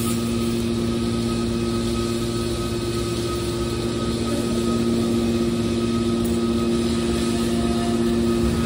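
Steady machine hum with two strong low tones and an even noise under them: a hydraulic scrap-metal baler's power unit running, its electric motor and pump. It gets slightly louder about halfway through.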